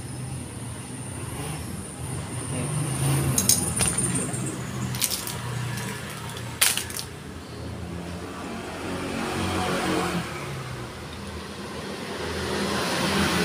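A few sharp metal clinks as a motorcycle's front brake caliper and tools are handled, over the hum of motor traffic that swells and fades twice.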